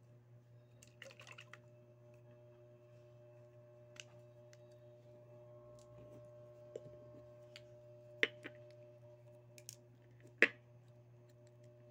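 Sharp clicks and knocks from a can of metal polish being handled, opened and set down: a short cluster about a second in, a few single knocks later, and the loudest near the end. A steady low hum runs underneath.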